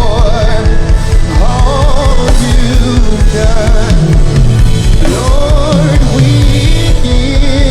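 Live worship band playing with a sung lead voice with vibrato over full chords, bass and drums.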